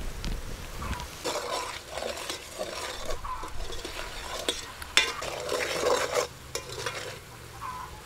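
A metal ladle stirs red curry paste frying in oil in an aluminium pot, scraping and clinking against the pot while the paste sizzles.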